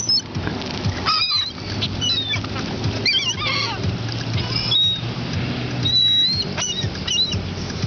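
Seagulls calling repeatedly, a series of short, high, wavering calls, over a steady low hum.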